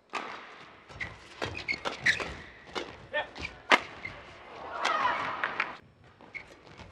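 Badminton rally: a shuttlecock struck back and forth with sharp racket hits about every half second, with short squeaks of court shoes between them. About five seconds in, voices rise briefly.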